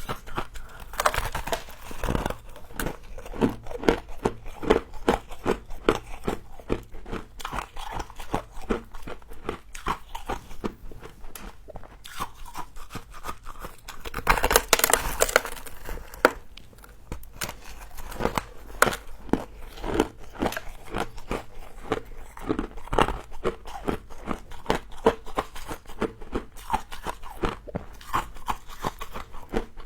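Close-up crunching and chewing of mouthfuls of crisp frozen humidifier frost, with dense, irregular crackles throughout and a louder rush of noise for about two seconds midway.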